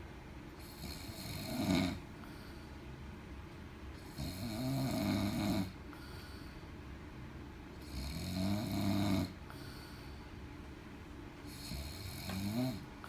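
A man snoring loudly in deep sleep: four long snores about four seconds apart, some rising in pitch as they go.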